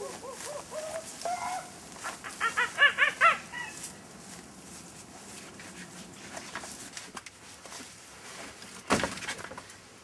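A quick run of short, pitched clucking calls like those of fowl, loudest two to three seconds in, fading out by about four seconds. A single sharp knock near the end.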